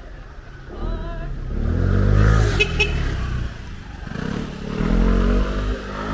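A road vehicle's engine passing close by, swelling twice with pitch sliding as it goes, with two sharp clicks about two and a half seconds in.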